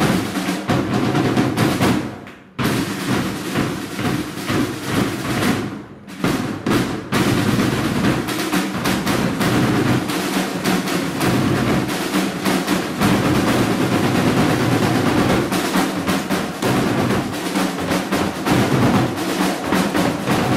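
Marching drum line of snare drums and bass drums playing a fast cadence with rolls, stopping briefly about two and a half seconds in and again about six seconds in, then playing on without a break.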